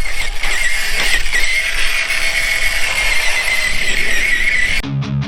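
Traxxas TRX-4 RC crawler driven at full throttle in second gear on its stock brushed motor, with the motor and geartrain giving a steady high whine. The whine cuts off suddenly near the end as guitar music starts.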